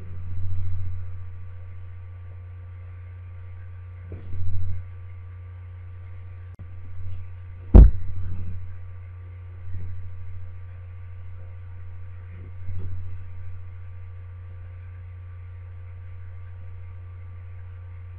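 Steady electrical hum with faint high steady whine tones: background noise of the narration recording. A few soft low thumps come through it, and one sharp click about eight seconds in.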